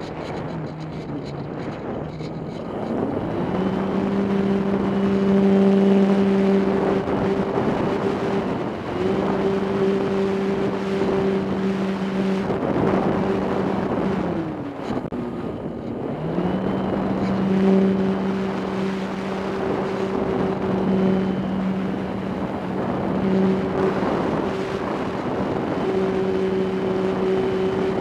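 RC airplane's motor and propeller droning steadily, heard from a camera on board, with wind rushing over the microphone. The pitch rises as the throttle goes up about three seconds in, drops away around the middle, and climbs again shortly after.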